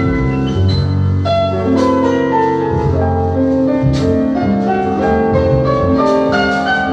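Outro music led by piano, with held chords over a bass line and several new notes each second.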